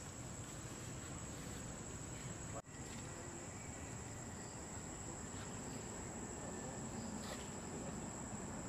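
Steady, high-pitched insect chorus over a continuous outdoor background hiss, broken by a momentary dropout about two and a half seconds in.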